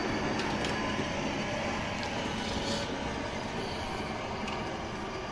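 Steady background noise, like a running fan or ventilation, slowly fading, with a few faint light clicks.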